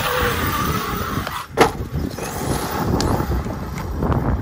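Arrma Kraton 8S EXB RC truck running over gravel, its electric motor whining faintly under steady rough noise. A single sharp thud about a second and a half in, as it comes down from a jump off a gravel pile.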